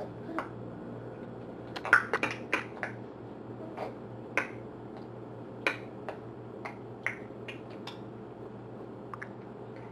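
A baby clicking and smacking with his tongue and lips, a run of quick sharp clicks about two seconds in, then single clicks every half second or so.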